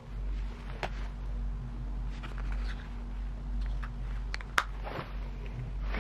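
A small coated-canvas envelope pouch being handled and opened by hand: soft rustles and a few short clicks, the sharpest a little past four and a half seconds in. A steady low hum lies underneath.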